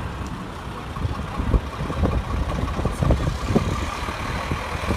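Diesel engine of an Iveco heavy tractor unit running as it slowly hauls a lowboy trailer past, a low rumble with several irregular low thumps. A faint steady high tone sounds in the background.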